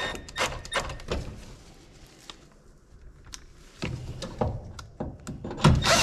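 Scattered light clicks and knocks, then a few heavier thunks near the end, from handling screws and a cordless drill at a gas furnace between drill runs.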